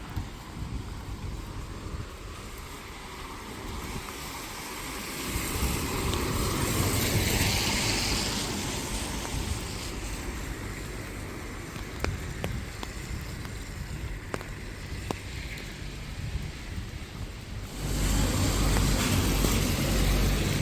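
Wet city street ambience. A vehicle passes on the rain-wet road, its tyre hiss swelling and fading about five to ten seconds in, and a few sharp ticks follow. Near the end the sound jumps abruptly to a louder, deeper traffic rumble.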